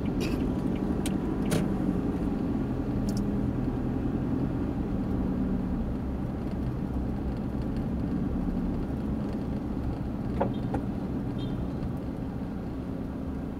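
Steady engine and road rumble inside the cabin of a moving vehicle, with a few brief clicks.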